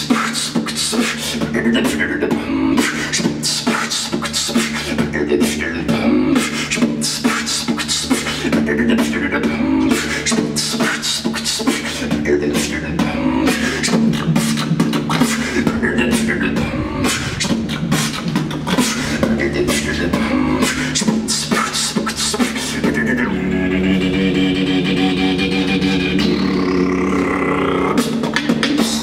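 Human beatboxing: a fast stream of mouth-made percussive clicks and hits over a steady low hum. Near the end the hits thin out for about five seconds under a held, pitched vocal sound with a rising sweep, then the rhythm returns.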